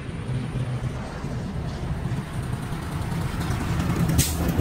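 Steady rush of floodwater flowing fast along a drainage channel, with a low rumble underneath. A brief sharp hiss sounds near the end.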